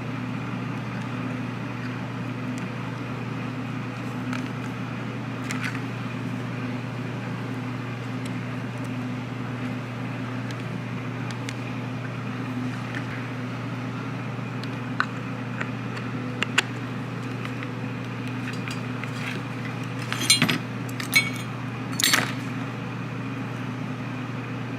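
Small metal parts and hand tools clicking and clinking during reassembly of a car's power antenna mast unit, over a steady low background hum. The clicks are scattered at first, and a louder cluster of clinks comes near the end.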